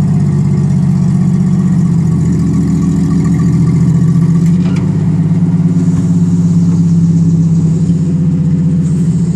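Forklift engine running steadily at close range, its pitch shifting slightly a couple of times, with a few faint knocks partway through.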